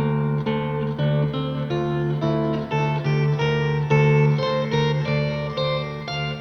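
Background music: an acoustic guitar playing plucked notes over a steady bass.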